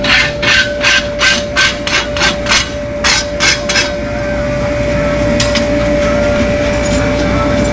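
Farrier's tool working a horse's hoof: about eleven quick, even strokes, roughly three a second, that stop about four seconds in. A steady hum runs underneath.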